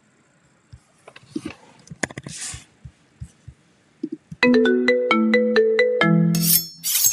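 A few scattered light clicks, then a ringtone-like jingle: a quick run of bright pitched notes, about seven a second, ending on a lower held note. A short noisy burst follows at the end.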